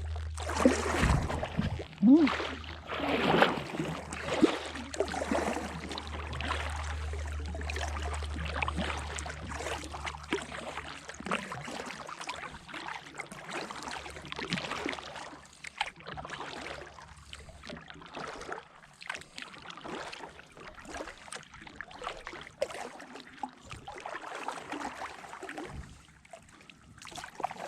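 Kayak paddle strokes: irregular splashing and dripping of water off the blade. A low steady rumble underlies the first ten seconds or so, then fades, and the splashing grows softer and sparser toward the end.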